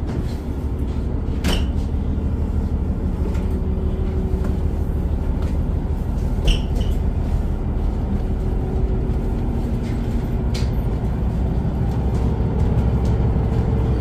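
Steady low drone of a river cruise ship's machinery heard inside the vessel while it is underway. A few sharp clicks come about a second and a half, six and a half and ten and a half seconds in.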